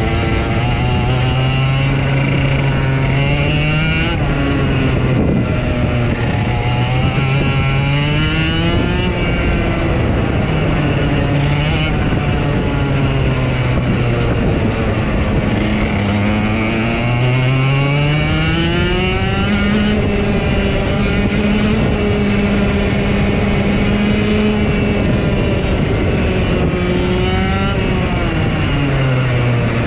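Race car engines running laps of a short oval track. One engine is loudest over the others, its pitch repeatedly dropping as it lifts off for the turns and climbing again as it accelerates down the straights.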